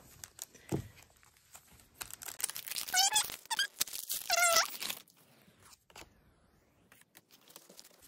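Foil wrapper of a Pokémon trading-card booster pack being torn open and crinkled, with two short squeaks about three and four and a half seconds in. Then faint clicks of the cards being handled.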